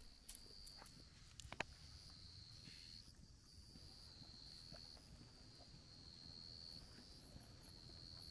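Faint, steady high trilling of insects such as crickets, with a short pause about three seconds in, and a few faint clicks in the first two seconds.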